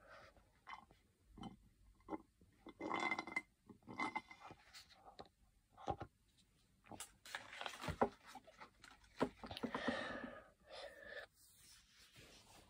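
A person's nonverbal vocal sounds in short, irregular bursts separated by brief quiet gaps.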